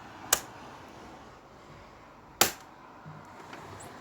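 Two sharp clicks about two seconds apart, the second louder, over a faint steady background hiss.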